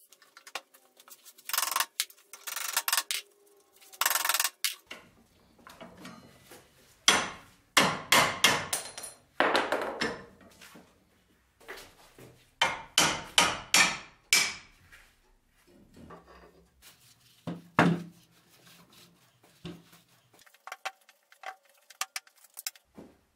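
Heavy rusty cast-iron parts of an old post vise knocking and clanking against each other and a wooden workbench as the vise is taken apart, in irregular clusters of sharp metallic knocks.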